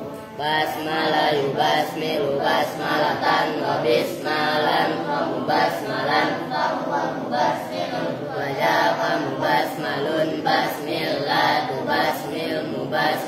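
A group of boys reciting Arabic aloud in unison, a continuous rhythmic chant.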